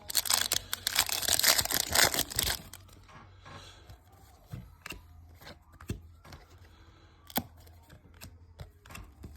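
A trading-card pack wrapper being torn open with crinkling for about two and a half seconds, then quieter handling with a few sharp clicks and taps as the cards are handled.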